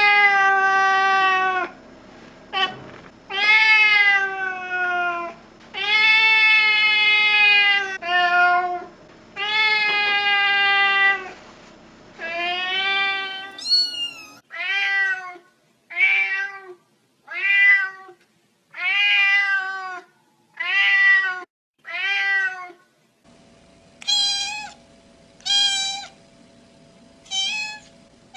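Domestic cat meowing over and over. Long drawn-out meows that fall in pitch give way about halfway through to shorter, higher meows.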